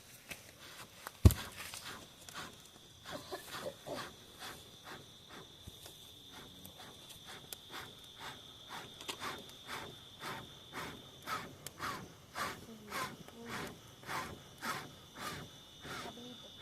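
Night insects, crickets, trilling steadily and high-pitched outdoors. A sharp click comes about a second in, then a regular run of soft knocks about two a second that grow louder towards the end.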